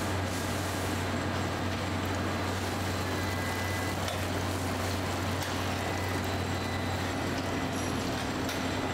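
Steady machinery hum from a barrel plating line, its gear-driven perforated barrels turning in the tanks, under an even wash of splashing and dripping liquid.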